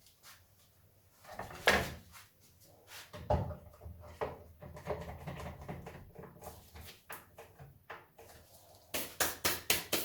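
Handling noise: irregular knocks and clatter of hard objects being picked up, moved and set down, ending in a quick run of about six sharp clicks.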